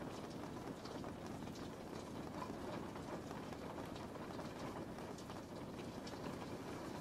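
Steady rain, an even hiss with scattered light ticks of individual drops landing.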